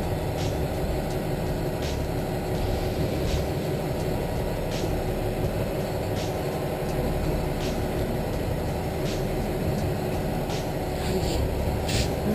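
Party boat's engine running steadily: an even drone with a steady hum, and a faint tick about every second and a half.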